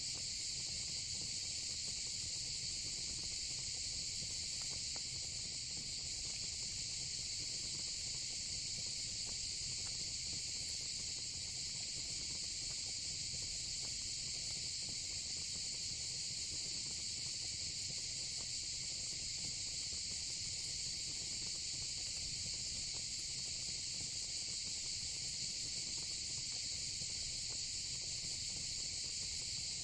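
Steady, unbroken chorus of crickets trilling, with a soft low fire rumble beneath and a faint crackle now and then.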